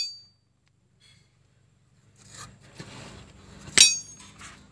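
A drilled-out steel wheel nut being handled: faint scraping and rubbing of metal, and one sharp clink with a brief ring near the end. The first two seconds are near silent.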